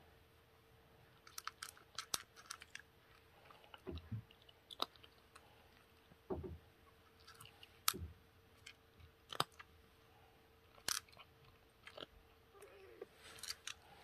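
Scattered small clicks and crackles with a few soft low thumps over a faint steady hum: hands handling a plastic eye-drop bottle and holding a kitten in a fabric cat bed while drops are put in its eye.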